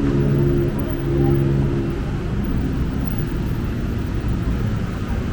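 City street traffic: a motor vehicle's engine runs with a steady hum close by, dropping away about two seconds in, leaving a continuous traffic rumble.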